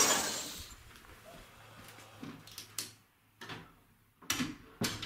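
A flat-screen TV crashing down: a loud impact that dies away over about a second, followed by several short knocks and clatters.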